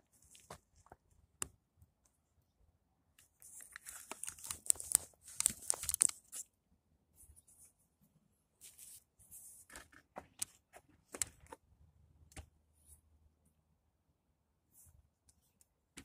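Plastic crinkling and tearing in a dense cluster for a few seconds in the middle, then scattered sharp clicks: a car's wiring harness, in its plastic loom and tape, being pulled and worked free.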